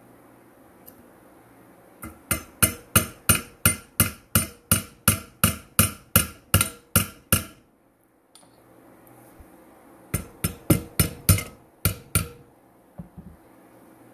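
Steel hand tool working the homemade valve spring compressor on an aluminium LS cylinder head: a run of sharp metallic clicks with a short ring, evenly paced at about three a second for several seconds. After a pause comes a second, shorter run.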